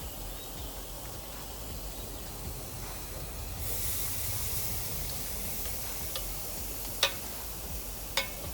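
Food sizzling on a hot barbecue grill as the sealed corn and potato packets go on, the hiss growing louder and brighter about three and a half seconds in. Two sharp clicks come near the end.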